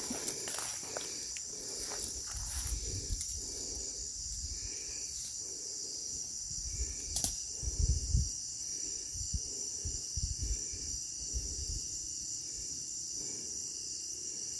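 Night chorus of crickets and other insects: a steady high-pitched trilling. Occasional low thumps cut in, the loudest about eight seconds in.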